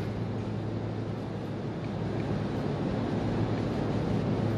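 Steady low hum with an even hiss, unchanging throughout.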